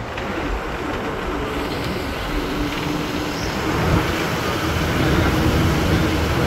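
TNSTC bus's diesel engine pulling uphill, heard from inside the bus with road and wind noise through the open window; the engine grows louder about four seconds in.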